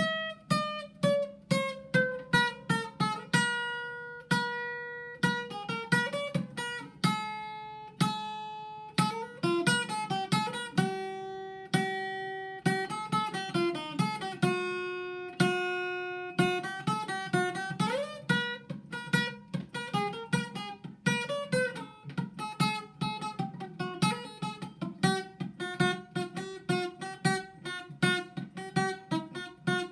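Acoustic guitar playing an instrumental passage: a quick run of plucked notes, some of them sliding in pitch.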